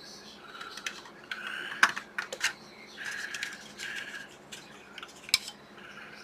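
Small sharp clicks and taps of plastic kit parts and hobby tools being handled on a workbench, a few louder snaps about two seconds in and again near the end.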